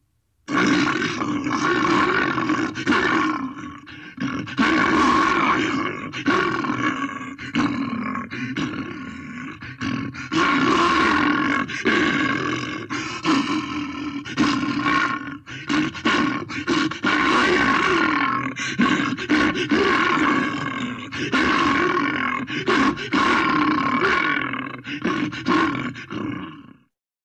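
Bear growling and roaring in a long, unbroken run of loud, pulsing growls that starts about half a second in and stops just before the end.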